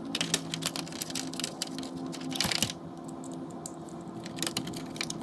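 Screwdriver working on a plastic truck grille: irregular sharp clicks and taps of the tool on the plastic, over a steady low hum.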